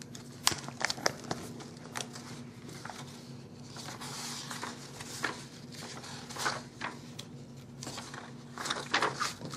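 Paper pages of a spiral-bound planner being turned and handled: a string of irregular rustles and small crisp taps, busiest about four to five seconds in and again near the end.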